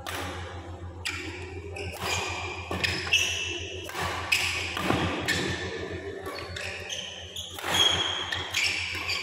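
Badminton rally: rackets striking the shuttlecock back and forth about once a second, with players' shoes squeaking on the court mat and their footfalls in between.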